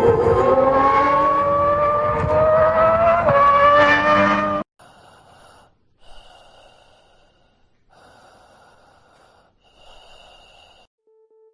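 Ferrari engine accelerating hard, its pitch rising steadily with a small jump about three seconds in, then cutting off. It is followed by four faint, short hissing sounds with pauses between them.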